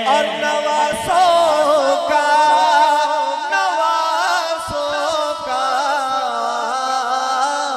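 Male naat reciter singing a long, wavering melismatic line into a microphone over a steady sustained low backing tone.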